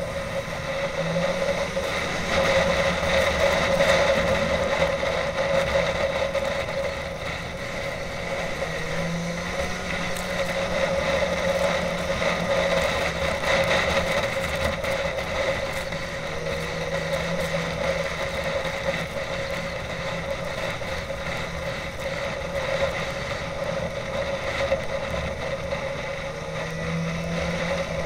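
Snowmobile engine running steadily at trail speed, heard from on board the sled. It is a continuous drone that swells and eases a little as the throttle changes.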